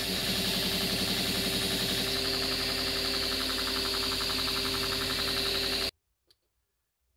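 Belt grinder running steadily, a constant motor hum under a high whine from the sanding belt; it cuts off suddenly near the end.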